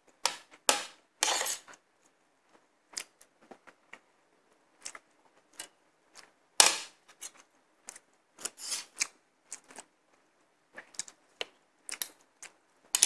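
Spoon and fork clinking and scraping against a ceramic plate while eating, in scattered sharp clicks and short scrapes with quiet gaps between. The sharpest clink comes about six and a half seconds in.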